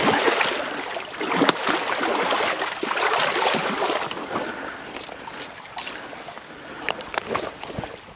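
Shallow stream water rushing over stones close by, loudest in the first half. Scattered knocks and rustles of handling follow in the second half.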